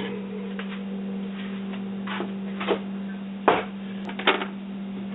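A steady low electrical hum, with about five light knocks and clicks as scrap pieces from the rice cooker are shifted around on a scale.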